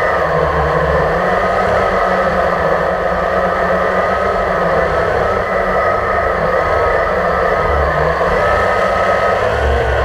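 Multirotor drone's electric motors and propellers heard through its own onboard camera: a steady, loud whine whose pitch wavers up and down as the drone manoeuvres, with short bursts of low rumble coming and going.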